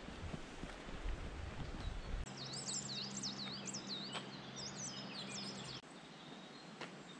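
Footsteps on a gravel forest track, then a songbird singing a quick run of high, sweeping notes for about three seconds over a low steady hum; both stop abruptly about six seconds in.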